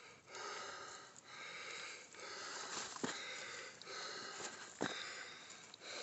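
A hiker breathing hard while climbing, winded from the ascent: breathy swells about once a second, with a few faint knocks.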